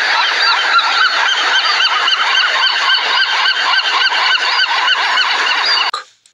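Many birds honking at once in a dense, overlapping chorus that cuts off abruptly about six seconds in.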